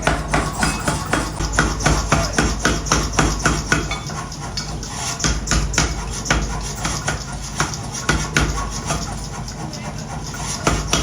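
Hammer blows on steel during axe forging, a quick regular run of about three strikes a second, thinning out to scattered strikes after about four seconds, over a steady low machine hum.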